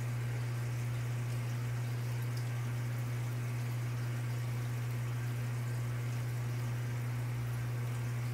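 A steady low hum at an unchanging level, over a constant faint crackling hiss.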